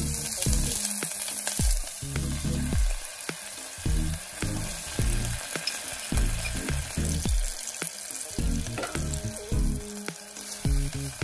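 Sliced shallots and green onions sizzling in oil in a nonstick pot, stirred with a silicone spatula that scrapes and ticks against the pan. Partway through, soy sauce and water are in the pot and keep sizzling as they are stirred in.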